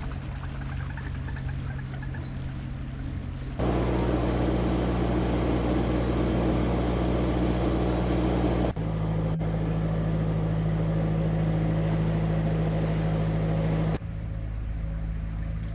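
A narrowboat's diesel engine running steadily while under way. The sound changes abruptly three times, at about four, nine and fourteen seconds in, as if separate stretches of cruising were spliced together.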